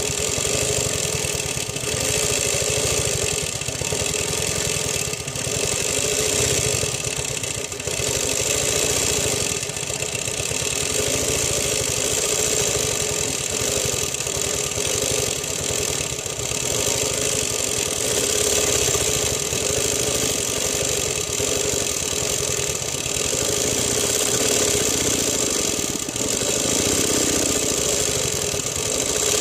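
Longarm quilting machine running steadily, its motor humming and its needle stitching through the quilt layers, the level rising and falling a little as the machine is guided.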